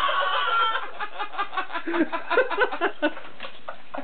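A high-pitched cry that ends about a second in, then laughter in quick, short bursts.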